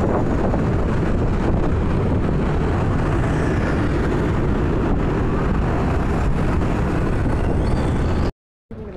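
Steady wind and traffic rumble from riding a motorbike through street traffic, heaviest in the low end.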